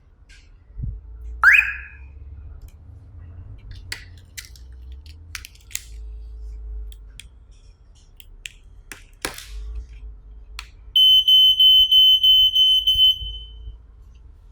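Clicks and taps of a device being handled. About eleven seconds in, a wireless smoke detector's alarm sounds: a shrill, high electronic tone beeping rapidly, about four beeps a second, for about two seconds, as the detector is tested to pair it with the alarm system.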